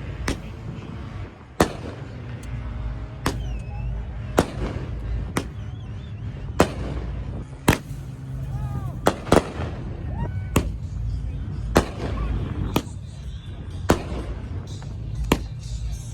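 A steady run of sharp, explosive bangs, about one a second, over a constant low rumble.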